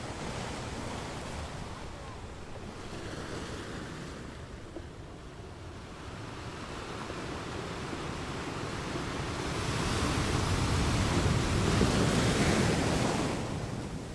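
Ocean waves washing onto a sandy beach: the surf builds to a loud wash about ten seconds in and falls away again near the end.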